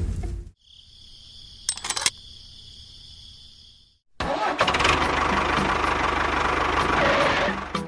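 Engine-like running noise with a fast, even low pulse, starting abruptly about halfway through and stopping near the end. It follows a quieter stretch of faint, steady high whine with a few clicks.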